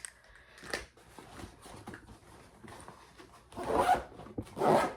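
A zipper pulled in two quick strokes near the end, after a few seconds of quieter handling rustle.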